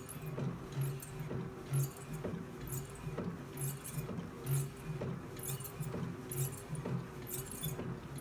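Star Trac 9-4060 elliptical running through its strides, with a metallic clinking rattle repeating a little more than once a second, each with a low thud, over a steady hum. The noise appeared after the machine's left arm was replaced.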